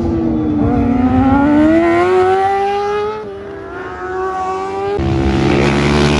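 Racing superbike engines on a circuit. One engine drops in pitch as it slows into a corner, then climbs steadily as it accelerates out. About five seconds in, the sound changes abruptly to another bike that grows louder as it approaches.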